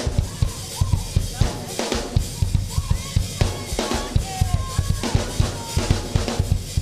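Drum kit playing a fast, busy beat, with bass drum and snare hits, under faint other music.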